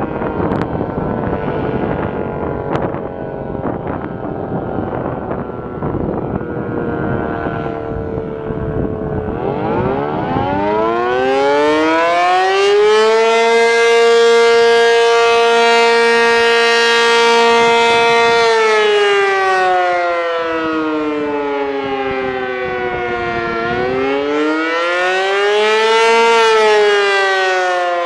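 ASC T-135 AC electromechanical outdoor warning siren sounding the attack signal, a rising and falling wail. Its pitch winds down for the first several seconds, climbs again about ten seconds in, holds steady for about five seconds, falls, then rises briefly and falls once more near the end. Wind buffets the microphone during the first part.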